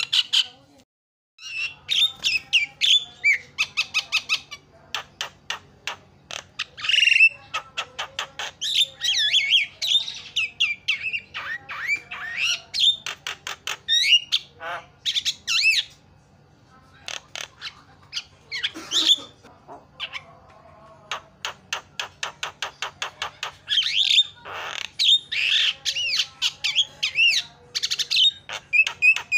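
Javan myna singing a long, varied song with mimicked phrases: fast rattling click trains, harsh squawks and whistled notes, broken by short pauses and one brief silence about a second in.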